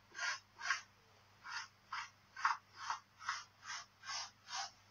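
Tailor's chalk scratching across fabric on a wooden table in a quick series of short back-and-forth strokes, about two or three a second, as pattern lines are marked out.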